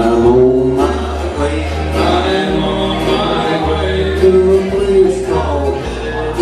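Gospel music: voices in harmony holding long notes over a steady bass line.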